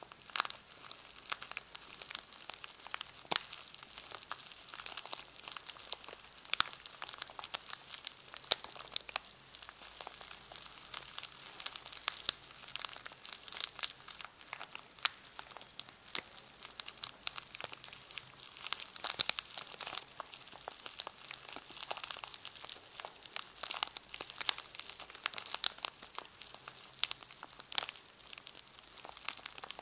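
A paintbrush in its packaging being handled, the wrapping crinkling in a continuous stream of irregular crackles and rustles.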